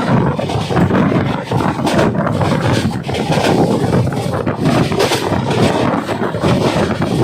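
Express train running past: a steady, loud rumble and rattle of wheels on the rails, with wind buffeting the microphone.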